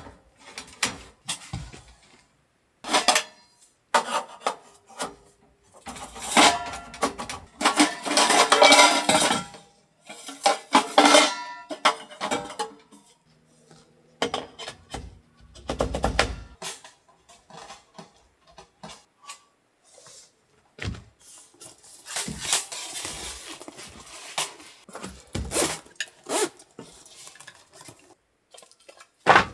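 Dishes, pots and cutlery clinking and knocking as they are handled and set down, with a dense run of clatter in the first half and a dull thud about halfway through.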